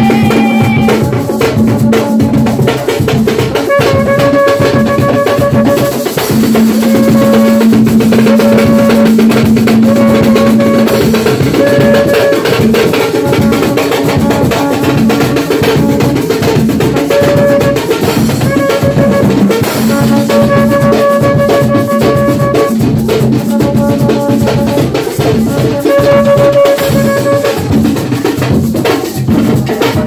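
Live Garifuna band music: fast, steady drumming on hand drums with a drum kit, with held melodic notes over the beat.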